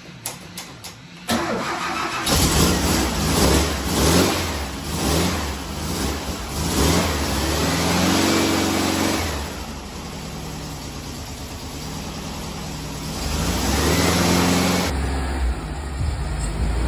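Air-cooled Volkswagen Beetle flat-four engine starting and pulling away, its pitch rising and falling a few times as it revs and changes gear.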